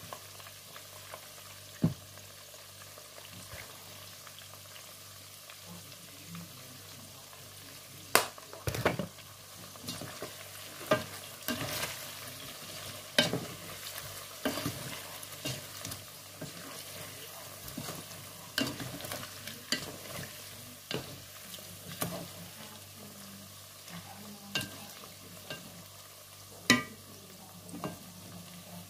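Pork pieces frying in oil in a pot, with a steady sizzle. From about eight seconds in, a wooden spatula stirs the meat, knocking and scraping against the pot at irregular moments.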